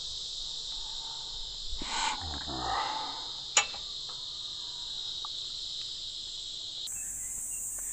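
Steady, high-pitched chorus of insects that shifts higher after a cut near the end. A brief rustle comes about two seconds in, and a single sharp click comes about three and a half seconds in, the loudest sound.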